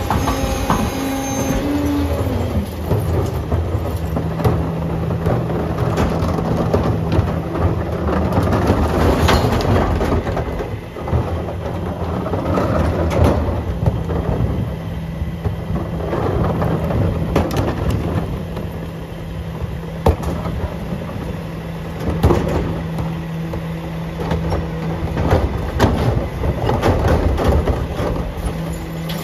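Curbtender rear-loader garbage truck working a recycling pickup: the engine and hydraulics make a steady drone that sets in about three seconds in and holds, under repeated clattering knocks of recyclables and plastic carts being tipped into the hopper.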